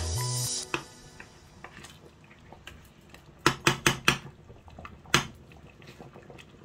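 Cooking spoon stirring a large metal soup pot, clinking against the pot in a quick run of about five knocks about halfway through and once more a little later. Background music cuts off just after the start.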